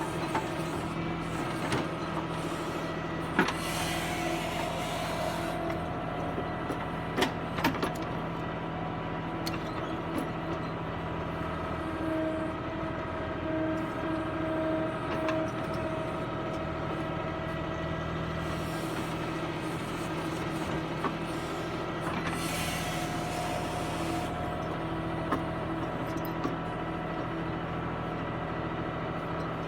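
Tractor diesel engine running steadily while working a backhoe loader, with a whine that comes and goes as the machine works and a few sharp metallic knocks in the first eight seconds.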